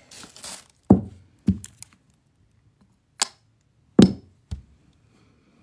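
Handling noise on a phone held close to the face: a brief rustle, then about six dull knocks and taps at uneven intervals as a hand bumps the phone near its microphone, the loudest about a second in and about four seconds in.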